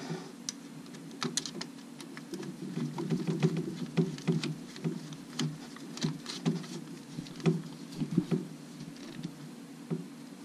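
Irregular light metallic clicks and taps from a socket tool and bolts being fitted to a vacuum-pump block-off plate on the engine's cylinder head, over a steady low rumble.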